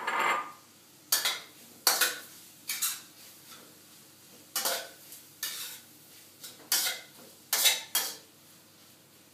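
A cooking utensil stirring onions and garlic in a steel wok, scraping and knocking against the pan in about ten sharp, irregularly spaced strokes.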